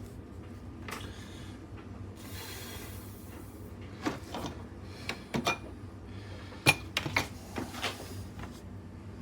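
Handling noises: a string of sharp clicks and clattering knocks of hard objects being set down and moved, with a short hiss about two seconds in, over a steady low hum.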